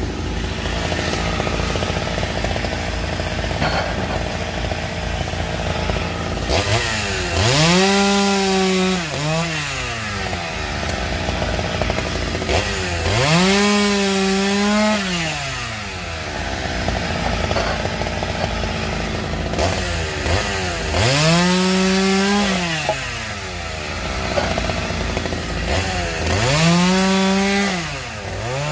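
Chainsaw cutting logs. Four times it revs up to full throttle and holds for about two seconds, then drops back to a low idle between cuts.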